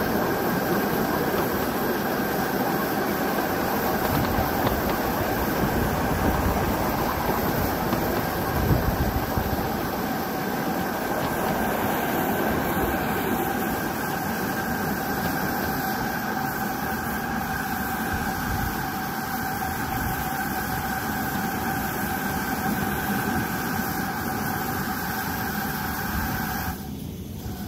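Miniature steam locomotive and its riding train running along the track: a continuous rumble with wheels clattering over the rail joints, and a steady whine that stops suddenly near the end.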